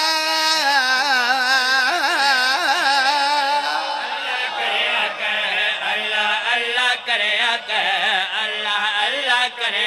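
A man's voice sings a devotional Urdu/Punjabi qasida in long, ornamented held notes. About four seconds in, several men's voices join in, chanting along with him.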